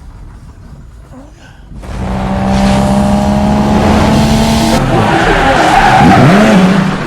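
Car engine revving with tires squealing, starting abruptly about two seconds in and loud, with a pitch sweep near the end.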